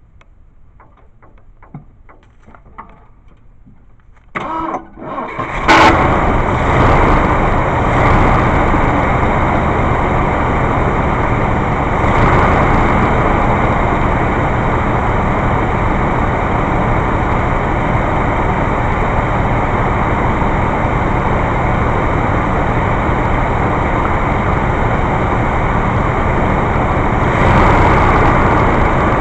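A 1980 Ford F350's 351 Windsor V8, running on a newly fitted, not-yet-adjusted 2150 two-barrel carburetor, is cranked by the starter about four seconds in. It catches about a second later and settles into a steady run, a little louder near the end. Faint clicks come before the start.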